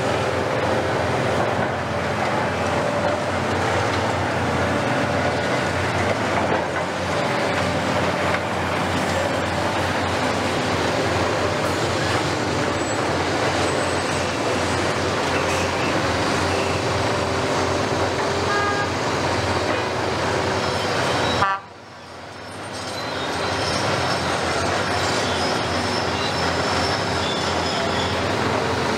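Heavy demolition excavators working on a building: diesel engines and hydraulics running under load, with continuous grinding and scraping of broken masonry and metal and some held squealing tones. The sound cuts out abruptly about two-thirds of the way through and fades back up.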